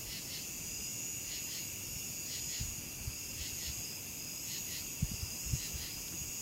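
A chorus of night insects chirring steadily, high-pitched, with a pulse about twice a second. A few brief low thumps come in the middle and about five seconds in.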